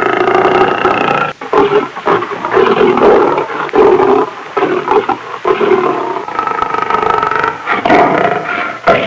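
Lion roaring loudly: several long, rasping roars in a row, each broken off by a brief pause.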